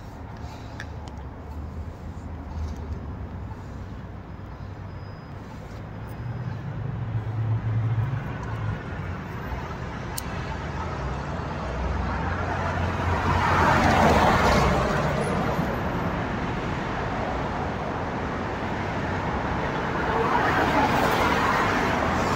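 Road traffic passing through a city intersection: cars and a city bus driving by, engines rumbling low and tyre noise swelling. The loudest pass comes about two-thirds of the way through, with another swell near the end.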